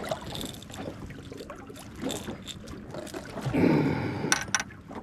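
Water lapping and trickling against a small boat, with scattered handling clicks and a louder rush of noise about three and a half seconds in, as a hooked fish is brought in.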